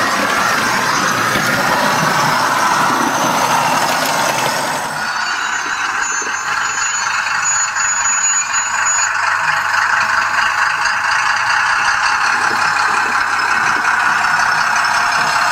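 Sound decoder in a Fleischmann 0e Magic Train model locomotive, a Doehler & Haass unit, playing a recorded DR V 15 diesel engine running sound through the model's small 9×16 mm speaker. The sound turns steadier about five seconds in, and a brief high squeal comes about halfway through.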